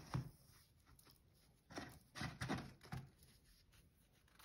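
Faint handling noise from a rice-filled cloth sock being lifted out of a glass jar: a few short rustles and soft knocks, most of them about two to three seconds in.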